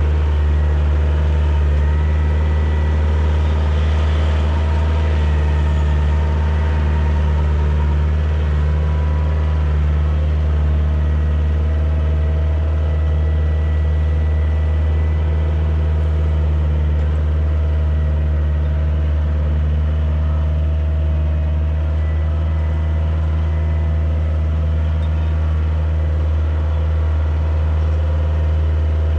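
Kioti DK40se compact tractor's diesel engine running at a steady speed while the tractor works a field with its loader-mounted root rake.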